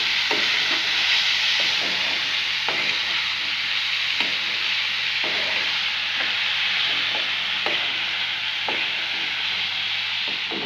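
Soaked chana dal frying in a little oil in a metal kadhai: a steady sizzle, with the spatula scraping through the dal against the pan about once a second as it is stirred.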